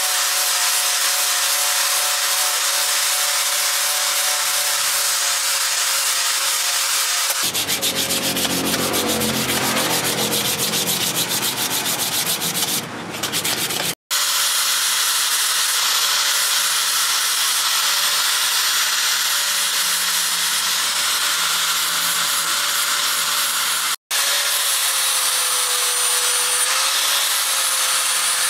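Electric angle grinder with a sanding disc running steadily with a high whine, sanding a machete's wooden handle and metal ferrule, its pitch wavering as it is pressed on. The sound cuts out abruptly twice for an instant.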